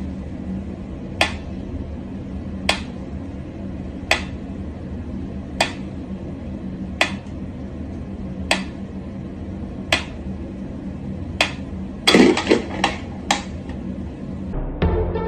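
Mechanical pyramid metronome ticking slowly and steadily, one sharp tick about every second and a half. A brief clatter of several quick knocks comes near the end.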